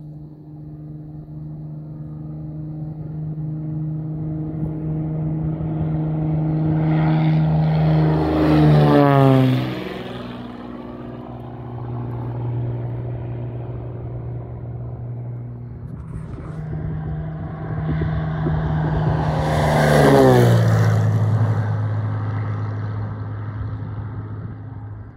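Beechcraft Bonanza single-engine propeller plane at takeoff power, growing louder as it comes down the runway and passing close by about 9 seconds in, its pitch dropping sharply as it goes by, then fading as it climbs away. It passes a second time about 20 seconds in, with the same rise in loudness and sharp drop in pitch.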